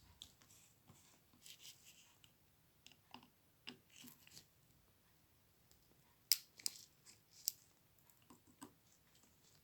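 Small screwdriver turning screws into a camera's plastic lens housing, with faint scattered clicks and scrapes and a few sharper clicks about six to seven seconds in.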